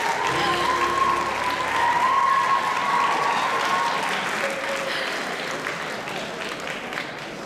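Audience applauding, with voices calling out over the clapping in the first few seconds; the applause gradually dies down toward the end.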